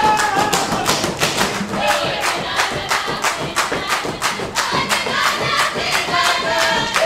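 Hungarian Roma dance music: group singing and shouted calls over a quick, steady rhythm of hand claps.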